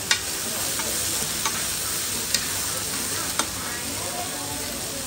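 Radish-cake cubes and bean sprouts sizzling in oil on a large, shallow frying pan, stirred with metal tongs and a spatula. The utensils clack sharply against the pan about four times.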